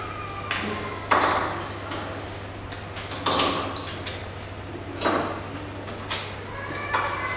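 Blue geometric inset pieces knocking against a wooden tray as a child picks them up and sets them down: about four sharp knocks, each with a brief ringing after it, over a steady low hum.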